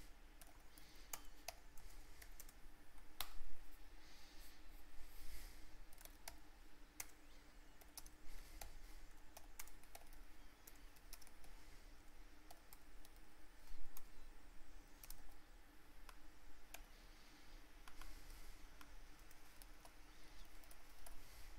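Typing on a computer keyboard: irregular runs of key clicks with short pauses, over a faint steady hum. Two louder key strikes stand out, about three seconds in and near fourteen seconds.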